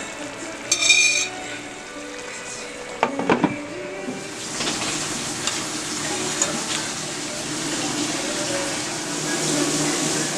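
Pork steak (liempo) frying in a pan, sizzling steadily and louder from about four seconds in, with a couple of metal utensil clanks against the pan before that.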